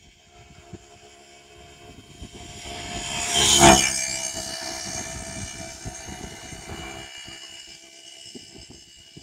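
A motor vehicle passing close by on the highway: it grows louder, is loudest about three and a half seconds in, then fades away over the next few seconds.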